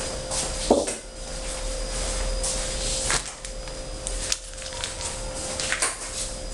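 A few sharp knocks and clattering of objects being handled and set down on a counter, the loudest a little under a second in, with short rustles between and a steady faint hum underneath.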